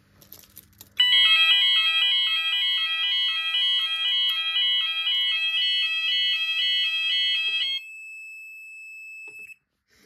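Two fire alarm sounders on a Gent Xenex panel going off together in an alternating two-tone pattern, about two cycles a second, starting about a second in. This is a brief alert triggered from the panel as a test. Near the end the pattern stops and a quieter single steady tone carries on briefly, then cuts off.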